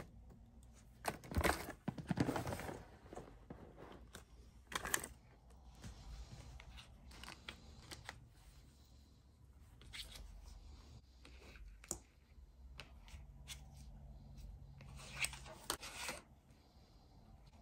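Scattered brief rustling and scraping handling sounds, the loudest cluster about one to three seconds in and another near the end.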